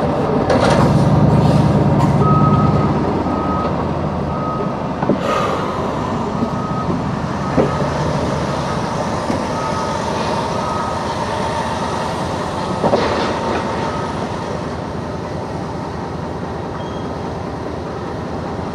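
Truck engine and cab noise heard from inside the cab as the truck rolls slowly, louder for the first few seconds. A vehicle's reversing alarm beeps at an even pace, under a second apart, through the first half. A few sharp knocks are heard along the way.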